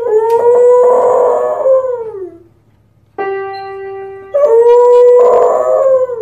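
A beagle-type hound howling at an upright piano: one long howl that sinks in pitch at its end, then the ringing of a chord of piano keys struck by its paws about three seconds in. A second long howl starts over the piano just over a second later.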